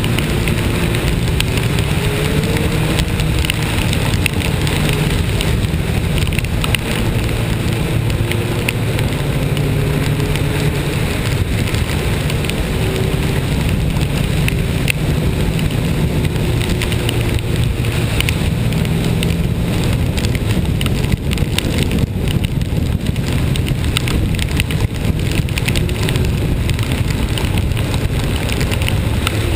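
A vehicle engine running steadily under rain, its note rising and falling slowly, with a hiss of rain and wet road and a pattering of fine drops.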